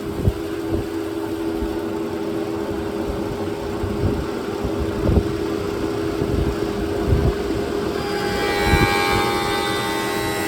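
Power-fed slab planer running: a steady mechanical hum with irregular low knocks through it. More high tones join near the end.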